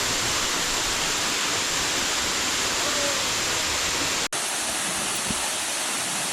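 Waterfall rushing: a steady, even hiss of falling water. About four seconds in it breaks off for an instant and picks up again.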